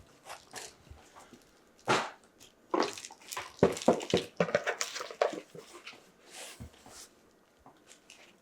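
Irregular clicks and crinkles of plastic packaging being handled, most of them packed between about two and five seconds in: the blister trays of a boxed 1/6 scale action figure being moved.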